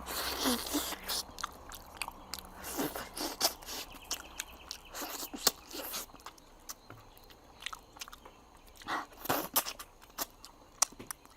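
Close-up chewing and biting of braised pig tail, with many short, wet smacking clicks of mouth and food.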